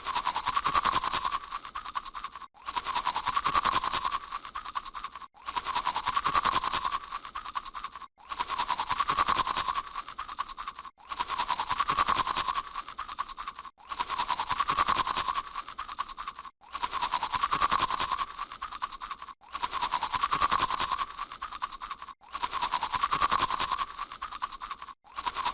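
Toothbrush scrubbing teeth with rapid back-and-forth strokes, in a short stretch that repeats about every three seconds with a brief break between repeats.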